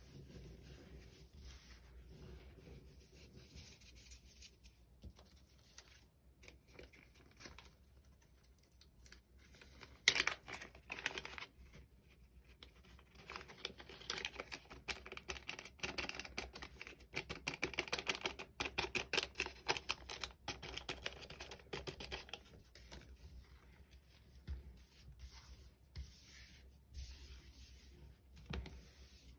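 Hands squeezing and crumbling dry baking soda, soft crunching. About ten seconds in, a small plastic packet of orange coloured powder is torn open and crinkled for several seconds, with dense crackling, as the powder is squeezed out; then quieter rubbing of the powder near the end.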